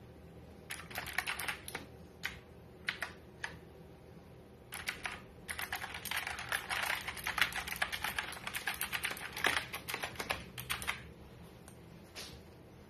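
Typing on an Auala G909 mechanical keyboard: a short flurry of key clicks, a few single keystrokes, then a fast run of clicking for about five seconds, and one last keystroke near the end.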